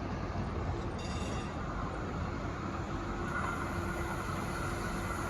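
Siemens U2 light-rail train running on the track: a steady rumble, with a brief high wheel squeal about a second in and a steady whine setting in about three seconds in.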